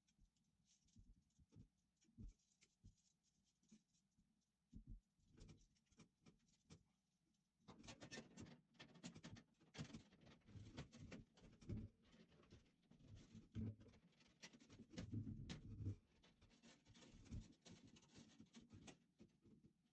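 Faint scraping, rubbing and light clicks of a sheet-metal fixture bracket and wiring being handled and fitted back into a fluorescent light fixture. It is sparse at first and becomes a busier run of scrapes and ticks about eight seconds in.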